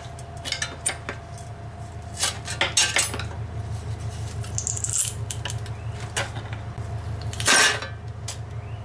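Scattered metal clinks and knocks as a lawn mower engine's metal plate is worked loose around the crankshaft, with a louder clatter near the end as it comes free and is lifted off. A steady low hum runs underneath.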